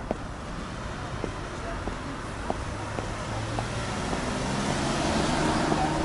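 Footsteps on stone steps, then a car driving through the intersection, its engine and tyre noise growing louder over the last few seconds.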